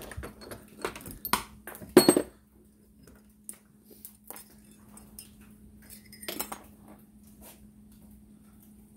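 Metal clanks and clinks as a steel handlebar spindle is unclamped from a bench vise and lifted out. Several sharp knocks come in the first two seconds, the loudest about two seconds in, and a short clatter follows about six seconds in, over a faint steady hum.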